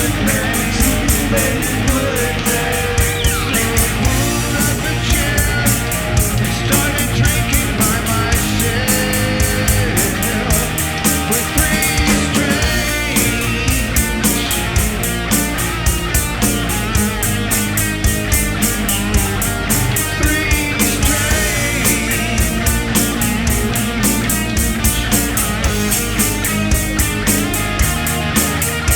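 Rock band playing live: distorted electric guitar, bass and drums, with cymbals struck on a steady, fast beat.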